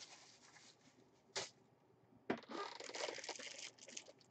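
A short knock about a second and a half in, then the plastic bag around a jersey crinkling for about a second and a half as it is handled, with a few faint crackles after.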